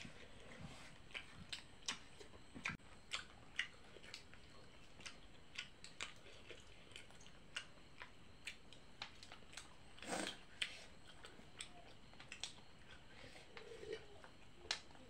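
A person chewing food close to the microphone: soft, wet mouth clicks and smacks, roughly two a second, with one louder smack about ten seconds in.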